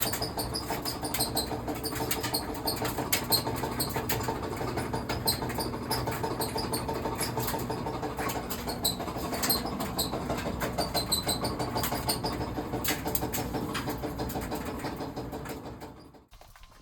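Whirlpool clothes dryer running, its drum rumbling with irregular high squeaks and knocking. These are the sounds of a dryer in need of repair. The sound fades out near the end.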